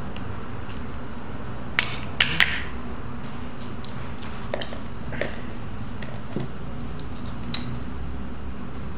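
Walnuts cracked in a metal hand nutcracker: three sharp cracks of shell close together about two seconds in, then scattered lighter clicks and snaps of shell pieces, over a steady low hum.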